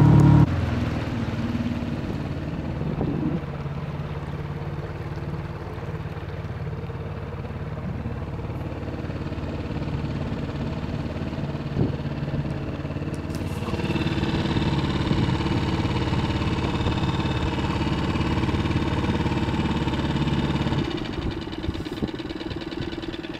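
Small outboard motor running steadily as it drives an inflatable boat. About two-thirds of the way through its note gets louder with more high overtones, and it stops shortly before the end.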